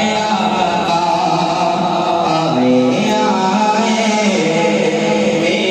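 A young man singing a naat, an Urdu devotional song in praise of the Prophet, solo into a microphone, drawing out long notes that bend and glide in pitch.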